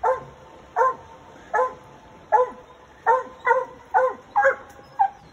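A coonhound barking treed at raccoons up a tree: about nine short, sharp barks, coming faster in the second half.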